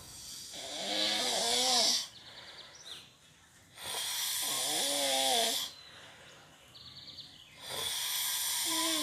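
A sleeping person snoring: three long snores about four seconds apart, each a wavering tone over a hiss.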